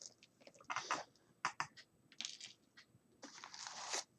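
Hands handling a small decorated box: a few short clicks and light knocks, then a longer rustling scrape about three seconds in.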